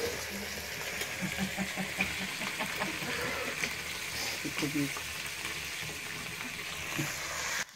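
Fish frying in hot oil in an iron kadai: a steady sizzle that cuts off abruptly near the end.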